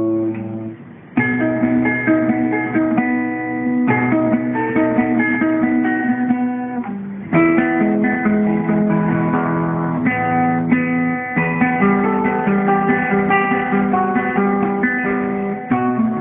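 Acoustic guitar playing a classical piece solo, plucked melody notes over bass notes, with a short lull about a second in. The recording is dull, with no treble.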